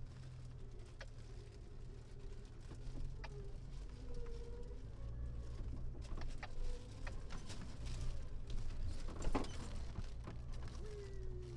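Jeep Wrangler TJ crawling slowly off-road: a steady low engine rumble, with scattered clicks and snaps, a louder crackle about nine seconds in, and short wavering squeaks scattered through.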